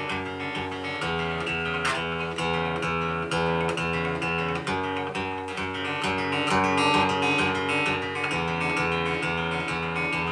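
Instrumental break in a song: a steady, rhythmic accompaniment of plucked and strummed notes with no singing.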